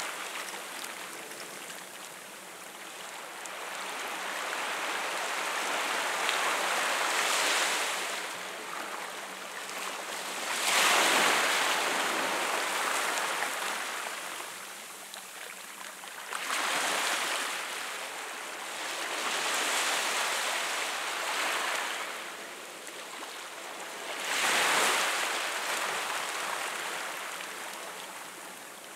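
Small sea waves washing in over rocks and the stony shore, the surf swelling and ebbing every few seconds; the loudest wash comes about a third of the way in.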